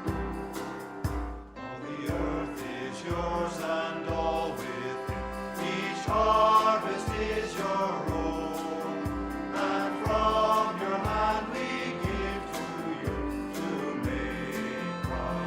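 A small church vocal group singing a worship song with a band: a steady kick-drum beat, cymbals and guitar accompany the choir, and the voices come in about two seconds in.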